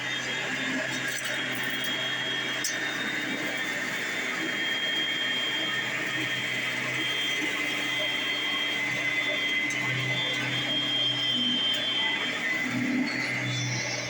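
Hoover WindTunnel Platinum direct-air upright vacuum running on high speed: a steady motor whine with a low hum beneath it, picking up dry oatmeal.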